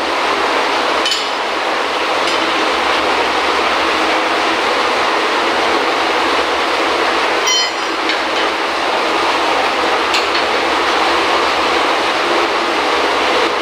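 Loud, steady machinery noise in a pump room, with a few short metallic clinks from tools and chain at the pipe flange.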